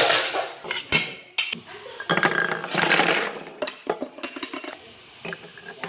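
Plastic toy food and toy dishes clattering and knocking together as they are handled and moved, with a sharp clack right at the start and a longer jumble of clatter about two seconds in.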